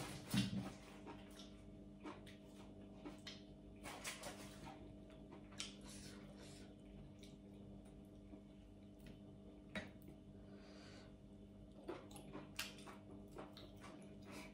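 Quiet eating at the table: soft chewing and faint clicks and rustles as sticky rice is handled by hand, over a steady low hum. A brief thump stands out about half a second in.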